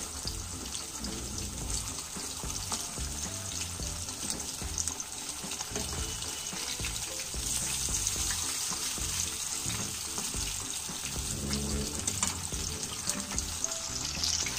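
Tilapia fish frying in hot oil in a nonstick pan, a steady sizzle, with occasional scrapes and knocks of a metal spatula as the fish are turned. Background music plays underneath.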